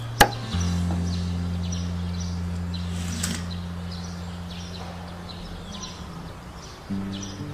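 Background music: a long held low chord that slowly fades, with faint repeated bird chirps over it. A sharp click comes just after the start, and a new chord enters near the end.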